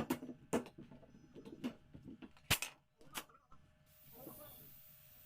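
Irregular sharp clicks and knocks from sofa upholstery work, about six of them in the first three and a half seconds, the loudest about two and a half seconds in. A faint steady hiss follows.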